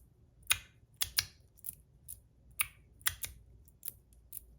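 Fidget slider being worked by hand, its sliding parts clicking together in about a dozen short, sharp, irregularly spaced clicks.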